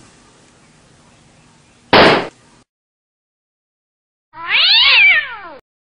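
A single gunshot sound effect, a sudden loud blast about two seconds in, dubbed onto a shotgun being fired. Near the end, after a short silence, comes a second loud sound: several pitches together rise and then fall over about a second.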